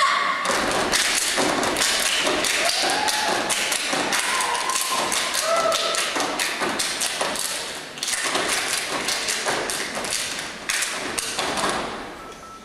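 A step team stepping in unison: a rapid, rhythmic run of stomps on the wooden stage with claps and body slaps. There is a brief lull about eight seconds in, and the stepping drops off just before the end.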